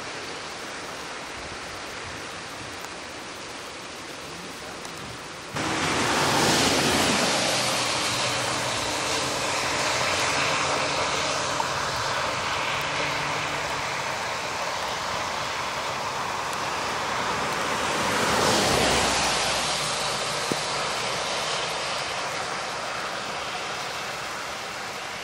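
Steady hiss of rain and wet-road traffic on a freeway. It turns suddenly louder about five seconds in, with a low engine drone under it for several seconds, and a passing vehicle's tyre hiss swells and fades near the end.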